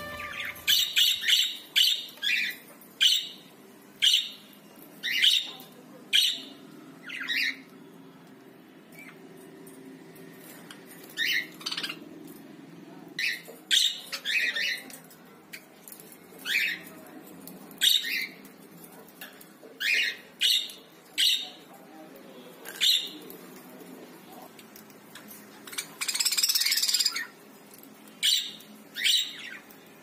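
Caged budgerigars chirping: short, separate calls every second or two, with one longer harsh squawk near the end.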